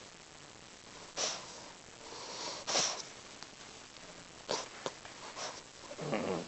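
Dog snoring: irregular noisy breaths, the loudest nearly three seconds in, with a lower, longer snore near the end.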